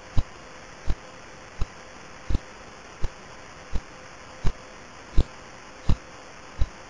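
Radio emission of a slowly spinning pulsar converted to sound: a sharp thump repeating evenly about 1.4 times a second over a steady hiss, one pulse per rotation.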